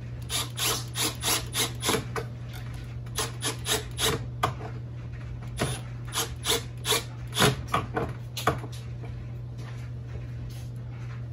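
Cordless drill with a long square-drive bit driving a pocket-hole screw into a hardwood joint in short stuttering bursts, about three a second, in three runs, then stopping. A steady low hum runs underneath.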